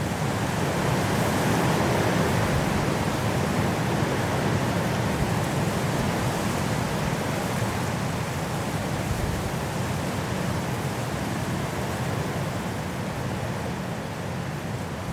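Strong wind blowing through trees in a snowstorm, a steady rushing that swells in the first couple of seconds and eases slightly toward the end.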